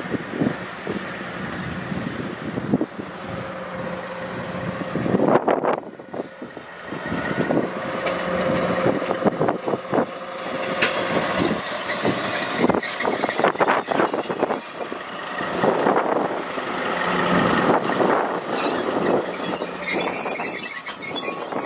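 A diesel-hauled freight train running slowly, its wagons knocking and clanking, over a steady engine note. A high metal squeal comes in about ten seconds in and again near the end.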